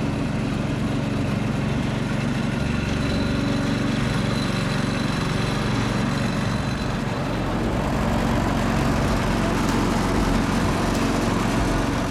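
A small engine running steadily at an even speed, with no revving.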